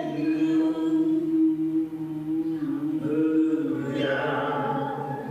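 Voices singing a slow worship song, holding long notes.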